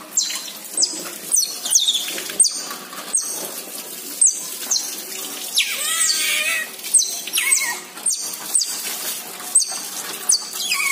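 Asian small-clawed otters giving repeated high-pitched chirps, short calls falling in pitch about twice a second, with a longer wavering squeal about six seconds in.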